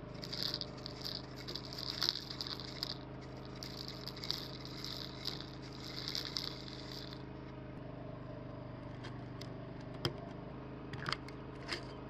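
Gold flakes and small pickers trickling through a plastic funnel into a small glass vial: a light rattling patter that comes in spells and stops after about seven seconds, followed by a few sharp clicks. A steady low hum runs underneath.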